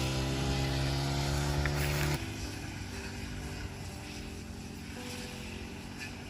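A vehicle engine running steadily with an even hum; about two seconds in it cuts off abruptly to a quieter, rougher running noise.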